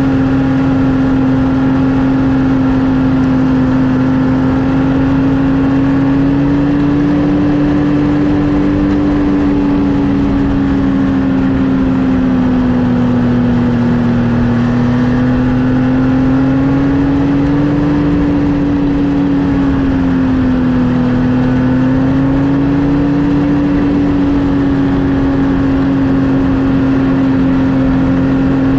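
Snowmobile engine running at a steady cruising speed, its pitch drifting slightly up and down as the engine speed changes.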